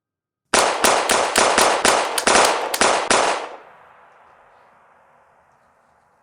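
Rapid burst of gunfire, about eleven shots at roughly four a second, starting half a second in and stopping after about three seconds, followed by an echoing tail that fades away.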